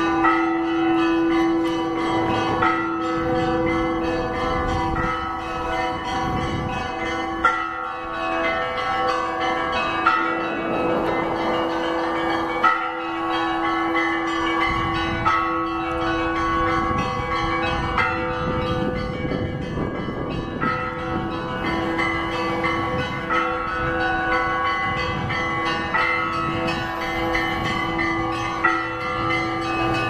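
Orthodox church bells ringing a full peal: several bells of different pitch struck in quick repeating patterns over lower bells whose tones hang on steadily.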